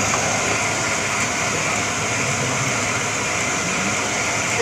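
A portable plastic pelletizing machine running with a steady, even whirring noise as plastic is fed into it.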